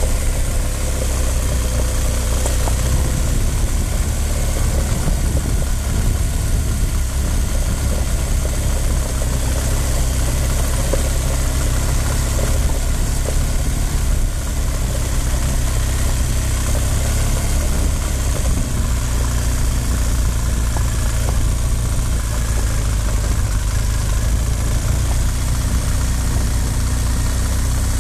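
Motorcycle engine running steadily at low trail speed on a dirt forest track, a deep, even engine note with a steady hiss of wind and tyres over it.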